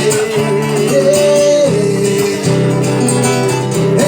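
A romantic ballad sung with guitar accompaniment: the singer holds long notes between lines of the refrain.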